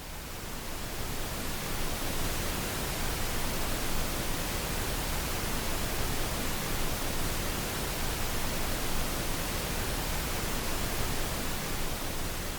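Steady rushing roar of a waterfall, fading in over the first couple of seconds and then holding even.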